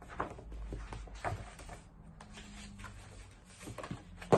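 Hardcover picture book being handled and its page turned: soft rustles and a few light knocks, with a louder thump near the end.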